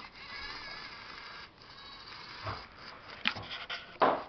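Small electric drive motors and gears of a remote-control toy Abrams tank whirring in a high, wavering whine as it drives, followed by a few sharp knocks, the loudest near the end.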